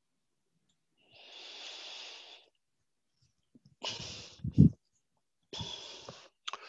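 A man breathing close into a headset microphone: a long breath about a second in, then a short noise ending in a low thump around four and a half seconds, and another breath near the end.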